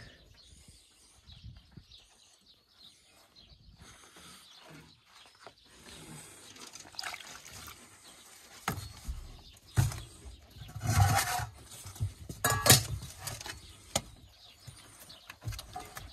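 Wolf pups playing and scuffling at close range: scattered knocks, scrapes and short noisy bursts, faint at first, loudest about eleven and twelve and a half seconds in.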